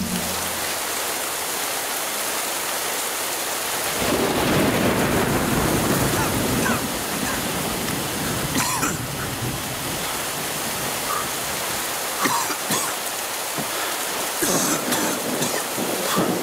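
Heavy rain pouring down steadily, growing heavier about four seconds in, with a few short sharp sounds over the downpour.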